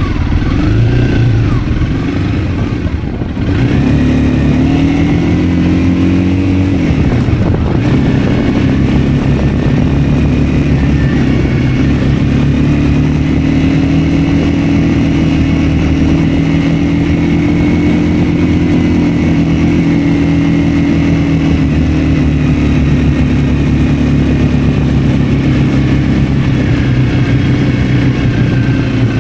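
Honda CRF 250L single-cylinder engine running under way, heard from the bike. Its pitch rises and dips several times in the first seven seconds or so, then holds steady.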